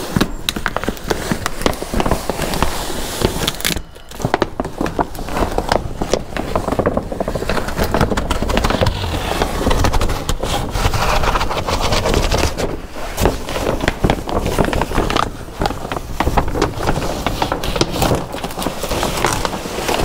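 Black plastic sheeting crinkling and crackling as it is gripped and folded by hand, a dense run of small crackles with brief lulls.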